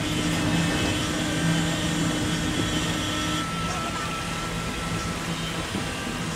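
A motor vehicle's engine running steadily with road noise. A low hum drops out about three and a half seconds in, and a thin whine sounds for a couple of seconds in the middle.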